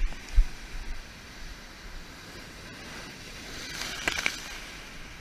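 Ocean surf breaking and washing over wet lava rocks, a steady hiss of water and spray, with a louder crackling splash about four seconds in. A few low thumps on the microphone in the first half-second.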